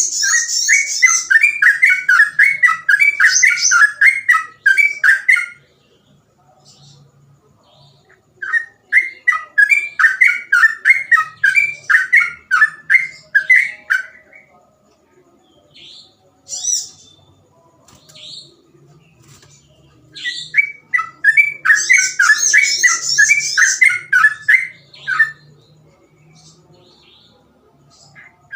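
Yellow-vented bulbul (trucukan) singing in fast, bubbling bouts of rapidly repeated notes, three bursts of about five seconds each separated by pauses with a few single calls. Higher, thinner notes ring over the first and last bursts.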